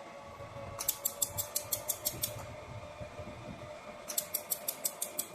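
QCW fiber laser jewelry welder firing a rapid pulse train: sharp snapping clicks at about seven a second, in two runs, one about a second in lasting a second and a half and another starting about four seconds in. A steady machine hum runs underneath.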